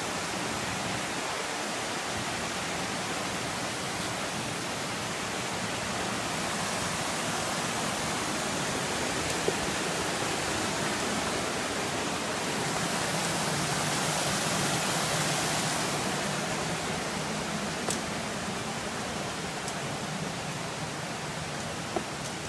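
Steady rushing of a mountain creek and its cascades, swelling louder around the middle, with a few sharp clicks.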